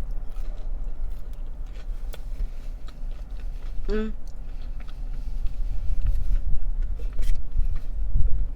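Close-up chewing and biting mouth sounds of someone eating, with scattered small clicks over a steady low rumble. There is a short hum from the eater about four seconds in.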